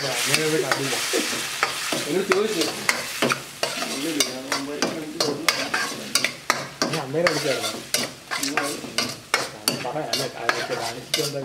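Ladle stirring a vegetable curry in a large iron wok: repeated scrapes and knocks against the pan over a frying sizzle, which is strongest in the first second or so.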